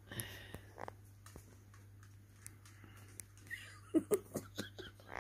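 Month-old kittens moving about on absorbent training pads: scattered light clicks and rustles, with a few short squeaky sounds about four seconds in.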